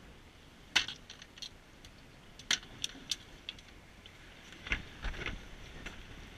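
Scattered sharp clicks and light knocks on an aluminium boat deck as a caught salmon and gear are handled, with a few heavier knocks near the end.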